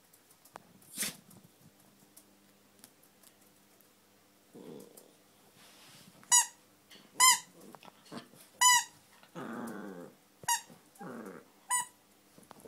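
A french-fries squeaky toy squeaking sharply five times, with a small dog's short low growls between the squeaks.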